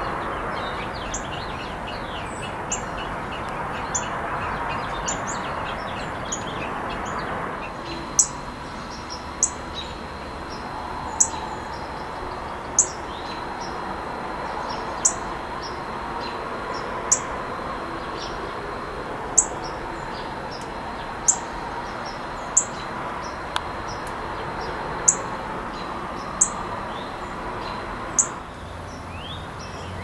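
Northern cardinal repeating sharp, high chip notes, a dozen or so, one every second or two through most of the stretch. Other small birds twitter at the start, over a steady background hum.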